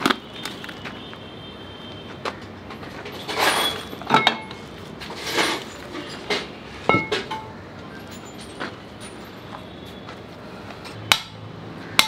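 Scattered metal clinks and clanks of steel tools and parts being handled and set down, a few of them ringing briefly, with a couple of short noisy scuffs in between.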